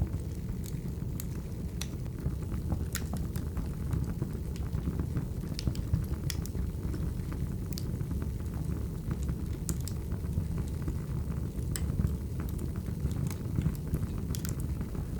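Wood fire burning steadily: a low rumble of flames with irregular sharp crackles and pops from the burning logs.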